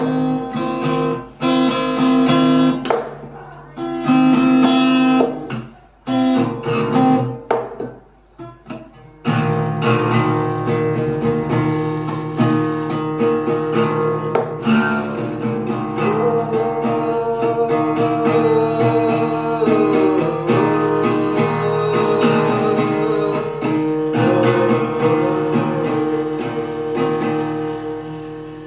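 Acoustic guitar music. Chords are strummed in separate bursts with short gaps for the first nine seconds or so, then the playing runs on continuously with a wavering melody line over the chords.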